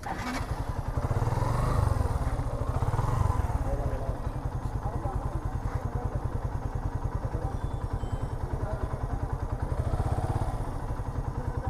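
An engine running with a fast, even low throb, its pitch rising and falling a few times near the start and once more near the end.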